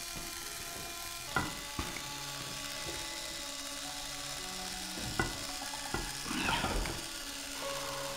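Small motor of a handheld electric corkscrew whirring in short bursts, with a few sharp clicks in between.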